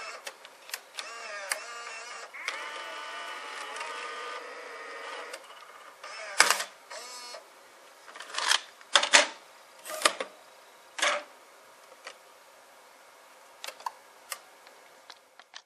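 Sony EV-C8u Video8 cassette recorder's tape mechanism ejecting: a motor whirs for about five seconds, its pitch shifting and bending, then sharp plastic clicks and clacks as the cassette lid is opened, handled and snapped shut. A few faint clicks come near the end.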